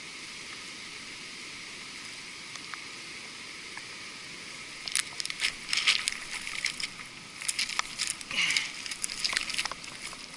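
Steady faint hiss of the foamy stream water, then from about five seconds in irregular splashing, dripping and crackling as the fishing net is hauled out of the water onto the grassy bank.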